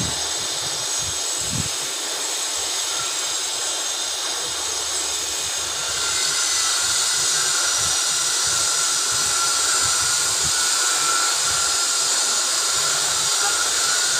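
Steady hiss of outdoor background noise that gets louder about six seconds in, with a brief low thump at the start.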